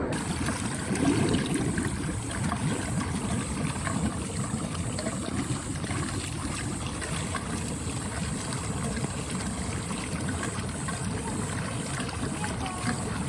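Water running and splashing steadily in a spa pool.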